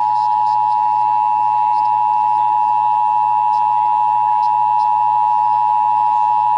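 Emergency Alert System attention signal: a loud, steady two-tone chord near 850 and 960 Hz, held without change, marking the start of an emergency alert broadcast.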